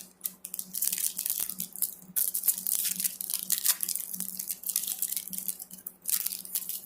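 Foil trading-card pack wrapper being torn open and crinkled by hand, a dense run of crackling rustles with a short lull about six seconds in.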